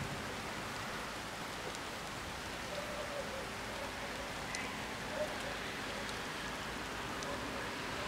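Rain falling: a steady even hiss with scattered ticks of single drops.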